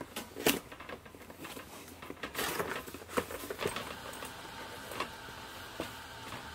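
Scattered light clicks and knocks with some rustling, like objects being handled.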